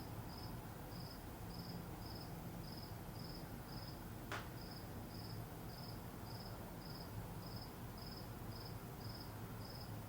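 A cricket chirping steadily, about two short high chirps a second, over a low steady hum, with a single short click about four seconds in.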